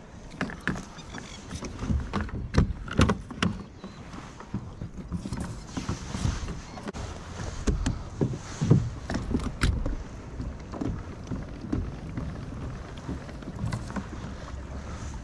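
Irregular knocks, clicks and creaks of fishing gear being handled aboard a plastic kayak, over a steady low rumble.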